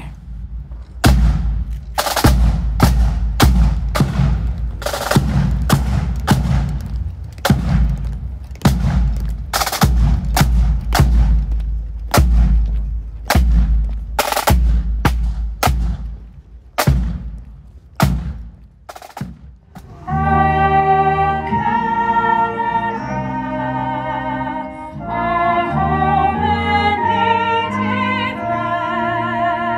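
Pipe band drum corps playing a quick marching beat: sharp snare drum strokes over deep bass drum beats. About twenty seconds in it cuts to a solo singer holding long notes with vibrato.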